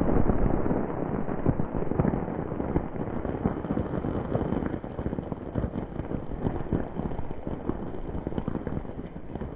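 Heavy rain pattering as a dense crackle of drops, with some wind rumble on the microphone; it gets softer after about five seconds.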